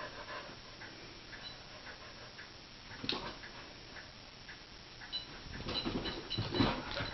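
Bernese Mountain Dog/shepherd mix moving about on carpet, sniffing and breathing, with small metallic tings from its collar tags. The sounds come in a few short bursts, busiest near the end.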